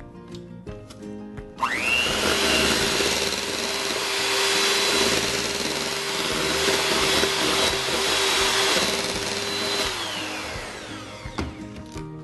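Electric hand mixer switched on about a second and a half in, its motor spinning up with a rising whine, then running steadily as its beaters whip cream cheese and heavy cream in a plastic bowl. It is switched off and winds down with a falling whine near ten seconds in.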